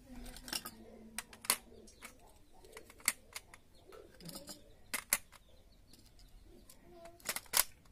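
Scattered sharp plastic clicks and taps as white modular switches are handled and pressed into the cut-outs of a PVC switchboard sheet, with two louder clicks near the end.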